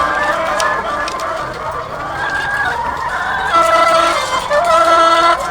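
A dense chorus of many egg-laying hens clucking and calling over one another, with several louder drawn-out calls in the second half.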